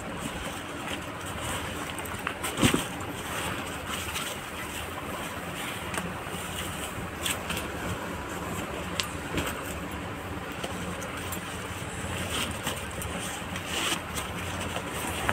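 Polyester backpack fabric rustling and shifting as it is handled and turned over, over a steady background noise, with a sharp click about two and a half seconds in.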